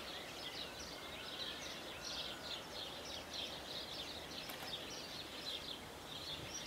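Faint rural outdoor ambience: high chirps repeating about two to three times a second, with a few soft whistled bird calls.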